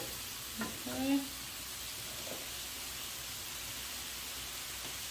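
Food sizzling steadily in a hot pan: an even frying hiss.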